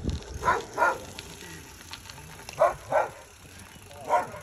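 A dog barking: short barks in quick pairs, about five in all, the last one near the end.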